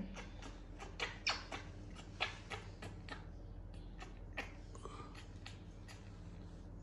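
Soft irregular clicks and ticks, about three or four a second, as a baby monkey mouths and handles the plastic cap and teat of a milk bottle, with a faint short squeak about five seconds in.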